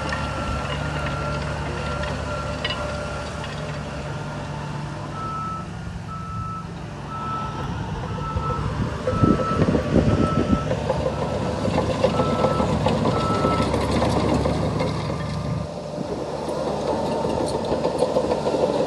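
A heavy construction machine's reversing alarm beeping about once a second over its running diesel engine. The beeping pauses briefly and stops about two-thirds through, while louder rattling and rumbling from the working machine build up from about halfway.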